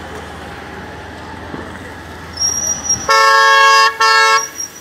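Vehicle horn honking twice in quick succession, each blast under a second, about three seconds in, over steady traffic and road noise.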